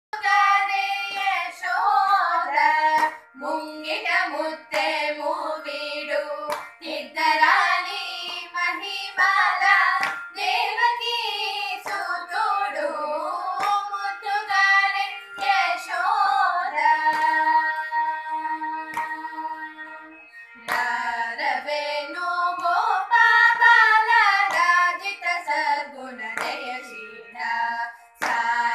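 Three female voices singing a Carnatic devotional song to Krishna in unison, moving between quick melodic turns and long held notes, over a steady drone note.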